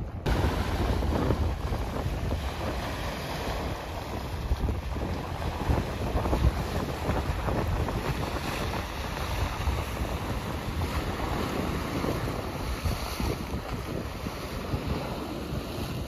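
Wind gusting on the microphone over the wash of sea waves on the shore: a steady, rumbling rush that swells and eases.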